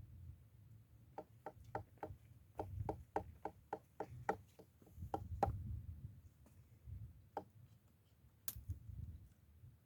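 A knife chopping on a cutting board: quick light knocks, about three to four a second, for a few seconds, then a few single knocks.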